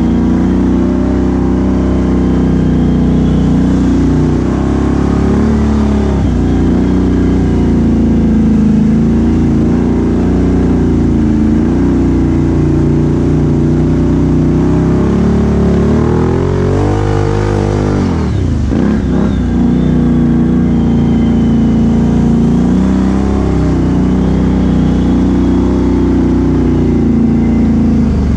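2017 Can-Am Outlander XMR 1000 ATV's V-twin engine with a Big Gun exhaust, running under steady throttle while riding. About seventeen seconds in, the revs climb, drop sharply and pick up again.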